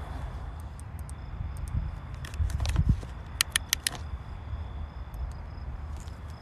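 Footsteps over rough ground with a low rumble of phone-microphone handling noise. A heavier thump comes just before the three-second mark, followed by a quick run of four or five sharp clicks.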